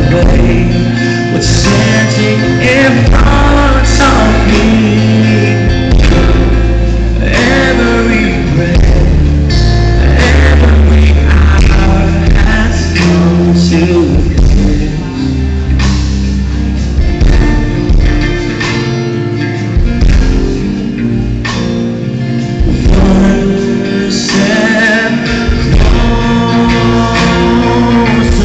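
Live band playing a song: male voice singing over acoustic guitar, electric guitar and drums, amplified through a PA.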